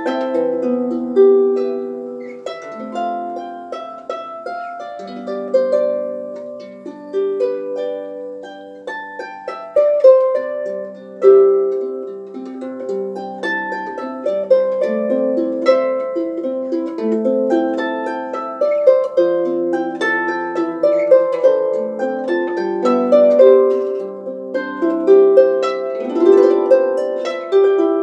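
Solo small harp played by hand: a plucked melody over lower bass notes, each note starting sharply and ringing on.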